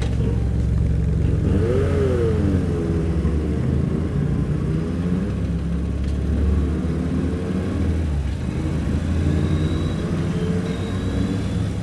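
Motorcycle engines running at low speed in slow traffic, with one brief rev that rises and falls in pitch about two seconds in.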